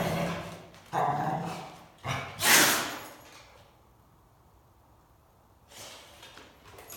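A sneeze: two drawn-out, voiced build-up sounds, then one loud explosive burst about two and a half seconds in.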